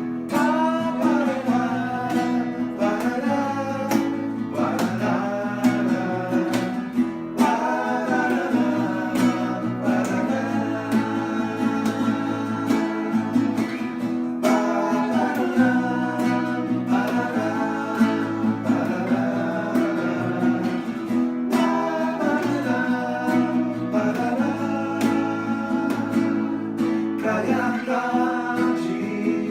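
Acoustic song intro: plucked and strummed acoustic strings hold a steady chordal accompaniment, with a gliding melody line over it.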